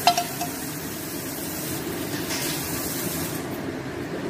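A sharp clank of a frying pan against the rim of a steel hot pot, with a couple of lighter knocks just after, as the last of the stir-fried chicken is tipped in. A steady hiss runs underneath, and its highest part fades out about three seconds in.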